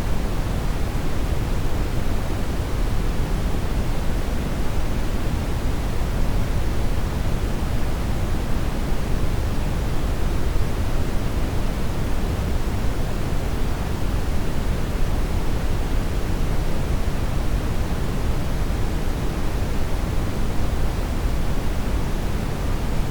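Steady generated noise, an even rushing hiss with no pitch or rhythm. It is strongest in the bass and grows fainter toward the treble, with no change through the whole stretch.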